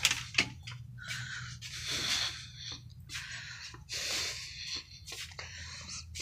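Breathing and handling noise close to a phone's microphone: a string of short noisy puffs with a few light clicks, over a steady low hum.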